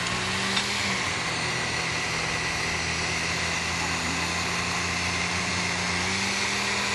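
Countertop blender running, mixing a thick spinach and soy milk batter with flour. The motor hum sags in pitch about a second in as the blender takes the load and picks up again near the end.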